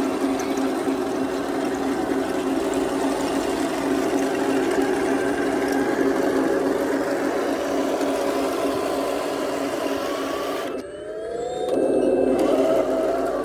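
Remote-control model tank's electric drive motors and gearboxes whirring steadily as it drives on its tracks. About 11 seconds in the sound dips briefly and returns with a rising whine as the motors speed up.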